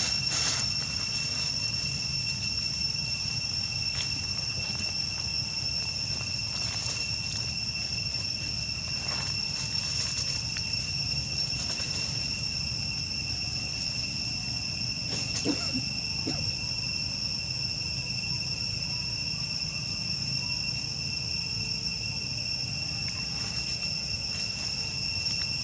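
Insects trilling in a continuous, steady high-pitched drone over a low background rumble, with a brief sharp sound about halfway through.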